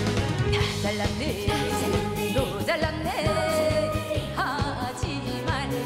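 A woman singing a Korean trot song live into a handheld microphone over a band backing with a steady drum beat, holding one long note a little past the middle.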